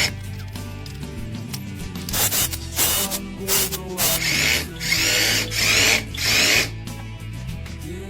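Power drill running in several short bursts, the later ones longer, each rising in pitch as the drill spins up. Background music underneath.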